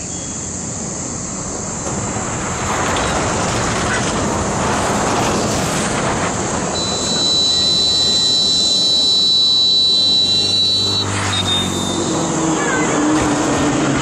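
Rumble of a passing engine, building over the first few seconds and loudest through the middle, with a steady high-pitched whine for a few seconds.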